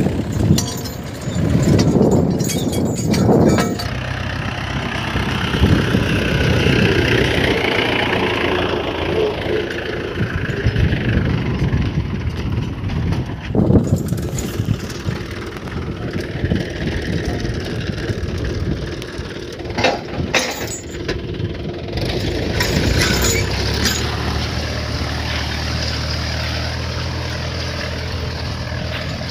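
Mahindra 575 DI tractor's four-cylinder diesel engine running steadily under load while pulling a tine cultivator through dry soil, with a few sharp knocks along the way.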